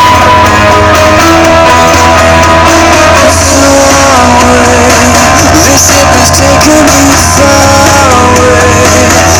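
Loud music with guitar and singing.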